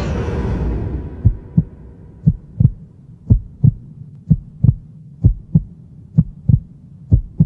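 Heartbeat sound effect: slow, paired low thumps, about one lub-dub a second. It starts as a louder passage of music and noise dies away in the first second.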